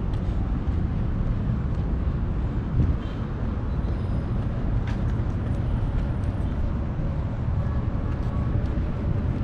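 Street traffic noise: a steady low rumble of passing vehicles, with a few faint clicks.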